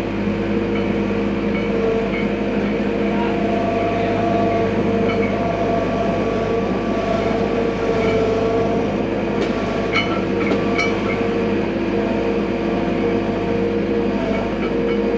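John Deere combine running steadily with a constant multi-tone mechanical drone and whine, and a few light clicks about ten seconds in.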